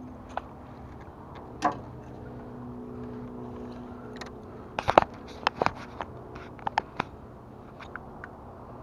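Electric trolling motor on a jon boat running with a steady low hum, under scattered sharp clicks and knocks, a quick cluster of them about five seconds in.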